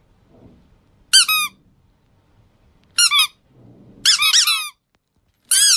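A squeaky plush chick toy being squeezed, giving short high-pitched squeaks that dip in pitch at the end. They come in small groups: one about a second in, another near three seconds, a quick run of three around four seconds, and one more near the end.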